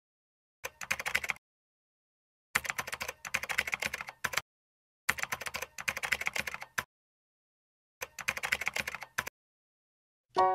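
Computer keyboard typing: four bursts of rapid keystrokes separated by silence, as on-screen text is typed out. Just before the end, music comes in with sustained notes.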